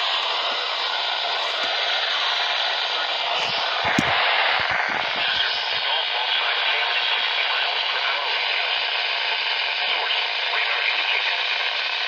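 Steady radio static hiss from a weakly received radio signal, with one sharp click about four seconds in.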